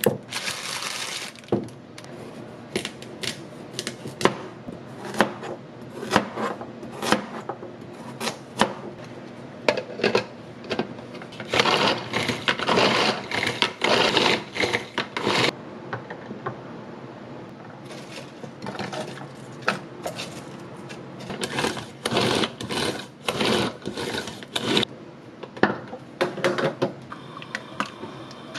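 Kitchen knife chopping food on a cutting board: irregular sharp knocks, with a stretch of fast, continuous chopping about halfway through.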